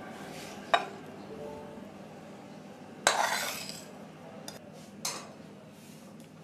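Steel spatula scraping and clinking against a steel pan as an oily spice mixture is scraped out into a bowl: a sharp clink about a second in, a louder scrape with a metallic ring about three seconds in, and another lighter knock about two seconds later. Faint background music underneath.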